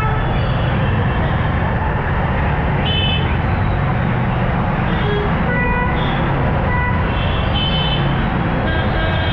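Slow, dense city traffic on a wet road: a steady loud wash of engine and tyre noise, with short vehicle horn toots about three seconds in and several more from about five seconds in.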